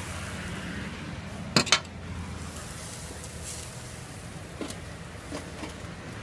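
Two sharp metallic clinks in quick succession about a second and a half in, then a few faint taps, over steady background noise.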